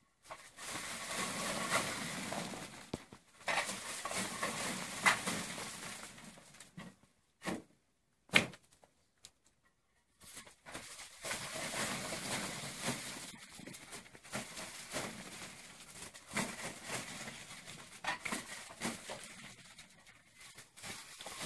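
Dried golden raisins rattling and pattering down as strings of hanging grape clusters are beaten with a wooden stick, a dense run of small knocks and rustles. It breaks off for about three seconds a third of the way in, apart from two sharp knocks, then starts again.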